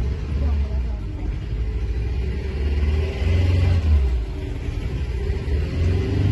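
Small boat's motor running as the boat moves along, a steady low rumble that gets louder about halfway through.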